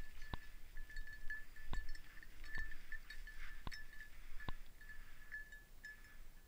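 A bell on a bird dog's collar jingling irregularly as the dog moves, with a number of scattered sharp clicks.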